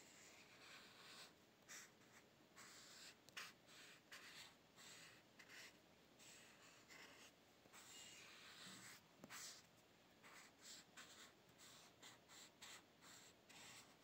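Faint scratching of a pencil tip on textured paper as lines are drawn, in many short, irregular strokes.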